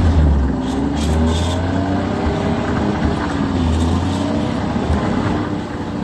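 Snowmobile engine running under way, its pitch rising and falling gently as the throttle varies.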